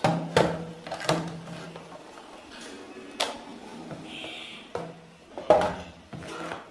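Hard plastic clicks and knocks from handling a toy bubble gun and fitting its battery pack into the handle, about seven sharp knocks spread through, the loudest a little past five seconds in.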